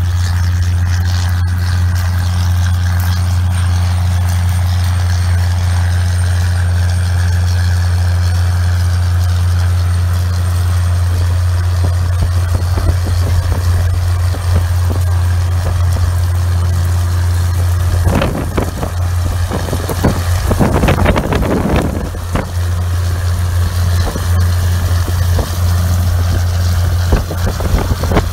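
John Deere 9400 four-wheel-drive tractor's diesel engine running steadily under load as it pulls a heavy harrow past, a deep constant drone. About two-thirds through, a few seconds of rough crackling noise join in.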